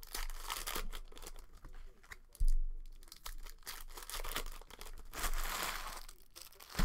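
Foil wrapper of a Hoops basketball card pack crinkling and tearing as it is ripped open by hand. Two dull thumps, about two and a half seconds in and again at the end, are the loudest sounds.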